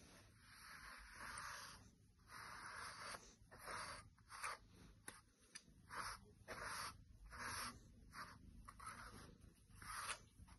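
A pet grooming brush swishing through a cat's fur in repeated short, scratchy strokes, about one a second, quiet and close.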